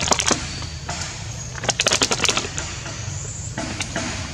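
Dry leaf litter and twigs crackling and rustling in two quick bursts of sharp clicks, one at the start and one about two seconds in, over a steady low rumble.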